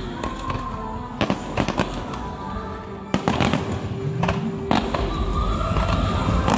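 Fireworks display: aerial shells bursting in a scattered series of sharp bangs, one to two seconds apart, with music playing underneath.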